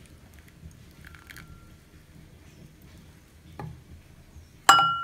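A ceramic bowl clinks: a faint clink with a short ring about a second in, then a sharp, loud clink near the end that rings with a clear tone for about a second.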